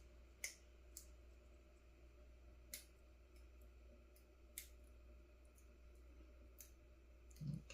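Faint, sparse small clicks, about six spread across several seconds, from tweezers handling a tiny SMD component being pulled from its packaging, over near silence with a low hum.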